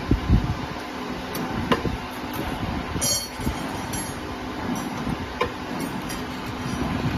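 Factory machinery running with a steady low rumble, broken by scattered sharp metallic clinks and knocks and a brief metal clatter about three seconds in.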